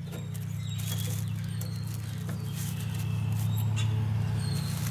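Drum-brake return spring being pulled and hooked into place with brake spring pliers: a few light metal clicks over a steady low hum that grows a little louder, with birds chirping.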